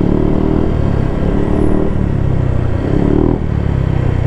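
Yamaha Aerox 155 scooter's single-cylinder four-stroke engine running steadily under way, a constant low drone with a higher hum that comes and goes, for about two seconds at the start and again briefly about three seconds in.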